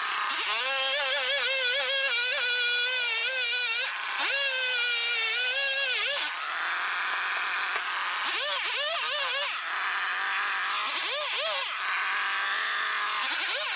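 Two-stroke chainsaw held at high revs for the first few seconds, then cutting into maple wood in short stretches, with the engine revving up and dropping back several times in the second half. It is trimming broken, splintery wood off the log.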